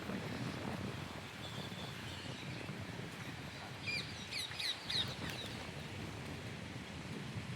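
A bird giving a quick run of short, high chirps about halfway through, over a steady low outdoor rumble.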